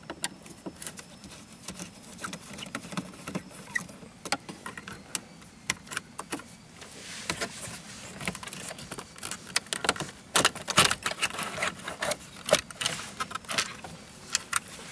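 Dashboard handling sounds: a screwdriver turning out the Phillips screw that holds a BMW E46's plastic light switch unit, then clicks and rattles as the unit is gripped and worked loose. The scattered small clicks come thickest about ten seconds in.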